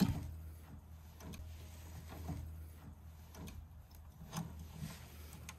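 Faint metallic clicks and taps of pliers and small coil springs being hooked back onto a snowplow mount's retaining pin, about one a second, over a low steady hum.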